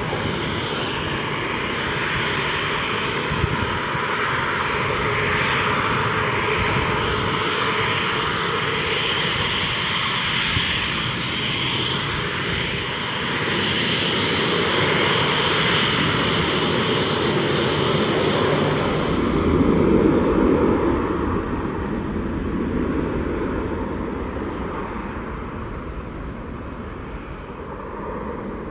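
Airliner engines, a loud steady noise with a high whine, building to a peak about two-thirds through and then fading as the aircraft moves away.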